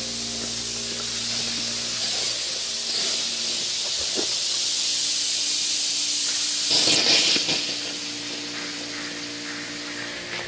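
Pop-up lawn sprinkler heads hissing as compressed air blows the last water out of the underground irrigation lines. About seven seconds in there is a louder burst of spray, and then the hiss weakens toward the end.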